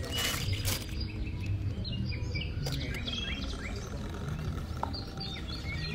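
Small birds chirping repeatedly in short quick calls over a steady low outdoor rumble, with a brief rustling noise in the first second.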